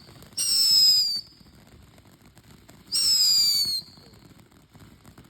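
Two shrill whistles from small 'bumblebee' whistling fireworks, each lasting under a second and sliding slightly down in pitch, about two and a half seconds apart.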